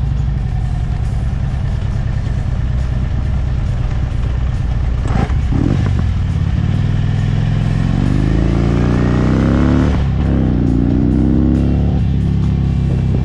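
Harley-Davidson Street Glide's V-twin engine running low and steady, then accelerating from about halfway through, its pitch rising, dropping at an upshift about three-quarters through, and rising again.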